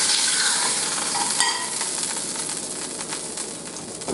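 Beef fat and grease from an unseasoned 80/20 ground-beef patty sizzling in a dry frying pan, with no oil added; the sizzle slowly fades. A single light click comes about a second and a half in.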